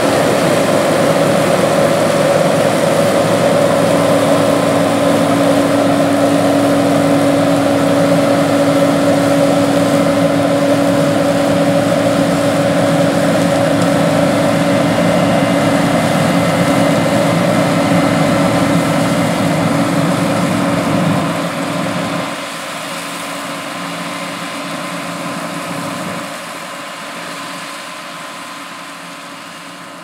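John Deere 9600 Maximizer combine's 7.6-litre, 466-cubic-inch diesel engine and threshing machinery running steadily under load while harvesting wheat, with a steady hum over the engine noise. The sound drops in two steps over the last third as the combine draws away.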